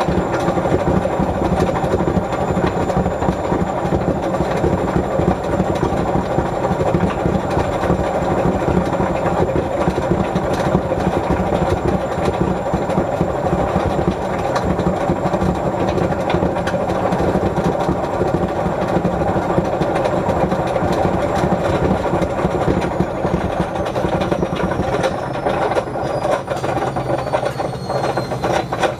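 Whirlpool washing machine running loudly on a cotton wash, with a steady rumble from the drum and motor. About three quarters of the way through, a thin high motor whine starts falling steadily in pitch.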